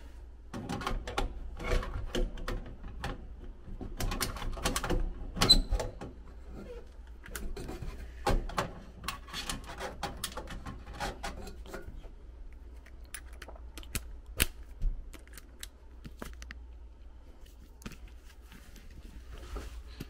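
Irregular clicks, taps and light metallic rattles of hands and tools working among wiring and sheet-metal brackets inside an air handler cabinet. They come thick and fast through the first half and thin out later, over a low steady hum.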